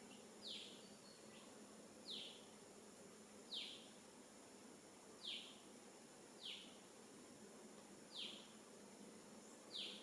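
A high, short animal call that slides down in pitch, repeated seven times at roughly one-and-a-half-second intervals over a faint steady hiss.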